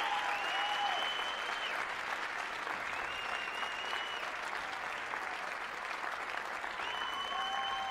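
Audience applauding after a dance routine, with three high, held calls from the crowd rising over the clapping, each about a second long.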